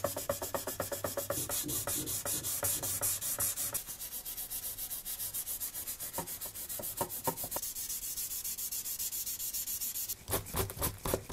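Hand rubbing on the painted body of a die-cast model Porsche 911 (993): quick back-and-forth scratchy strokes, several a second. There is a brief pause about ten seconds in, then a few louder strokes.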